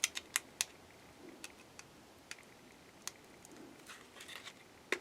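Small sharp clicks and taps from handling a boxed CPU's plastic packaging as the chip is taken out: three quick clicks at the start, then scattered single clicks with faint rustling between.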